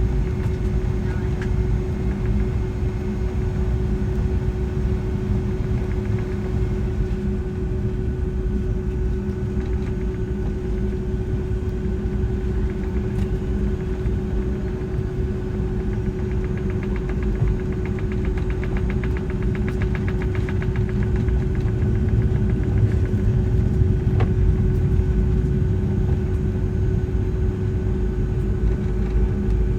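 Cabin noise of a Boeing 757-200 on the ground with its engines running at low power: a steady low rumble with a constant hum, growing a little louder about two-thirds of the way through.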